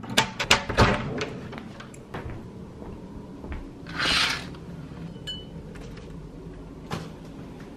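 Hotel room door's lever handle and latch clicking several times in quick succession as the door is opened, then a short swish about four seconds in as it swings, and a single click near the end.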